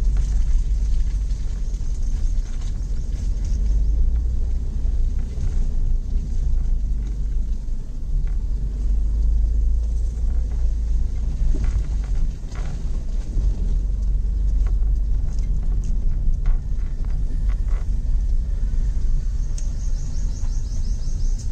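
Steady low rumble inside a Tata Tiago hatchback's cabin as it rolls slowly over a rough brick-paved lane. A few knocks from bumps come in the middle.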